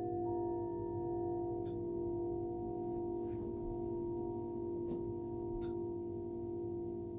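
Several metal singing bowls ringing together in long, overlapping steady tones. A fresh bowl is struck just after the start and adds a higher note that rings on over the others.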